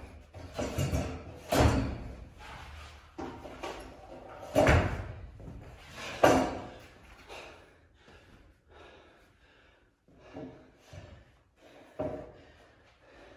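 Thuds of a person landing on the floor while jumping over a stepladder topped with a wooden board, with a hall echo. Several loud landings come in the first seven seconds, then a few softer knocks.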